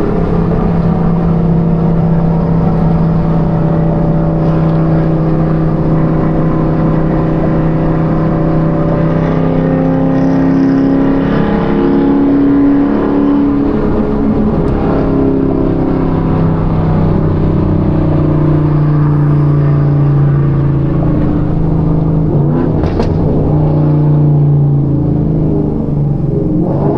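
Chevrolet Camaro ZL1's supercharged V8 running steadily under way, its pitch shifting a few times as the revs change.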